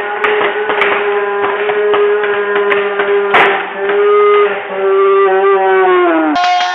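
A referee's long, drawn-out shout of "game over", held on one steady note for about six seconds and dropping in pitch at the end. About three seconds in, a single sharp pop of a paintball marker firing cuts through it.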